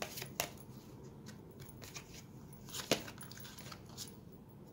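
Tarot cards being handled as a card is drawn from the deck: a few light clicks near the start and one sharper card snap about three seconds in.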